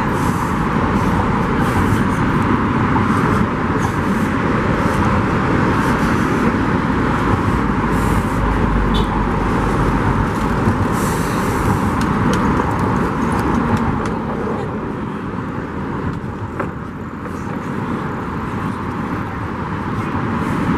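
Steady traffic noise from cars driving on the bridge roadway below the walkway, easing slightly a few seconds before the end.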